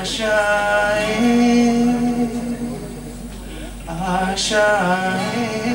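A man singing in long held notes while accompanying himself on a strummed acoustic guitar.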